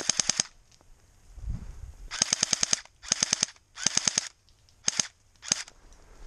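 Automatic airsoft gun fire in short bursts of rapid clicks, about a dozen shots a second. One burst ends in the first half second, three more come between about two and four and a half seconds in, and two very short ones come near the end.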